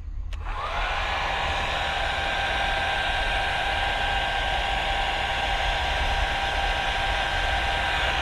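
Hair dryer clicked on, its fan spinning up within about half a second, then running steadily with an even blowing rush and a steady whine.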